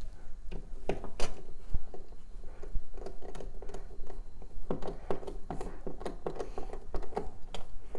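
Hand screwdriver turning a screw through a plastic thermostat wall plate into a drywall anchor. Scattered clicks, then from about three seconds in a run of short squeaky creaks, one per turn of the handle.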